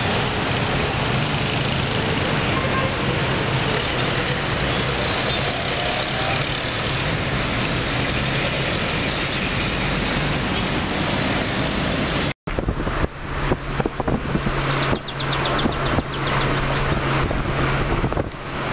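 Steady street traffic noise, an even hiss with a low hum. About two thirds of the way through it cuts off, and a car's engine hum and road noise follow from inside a car in slow traffic, with wind gusting on the microphone.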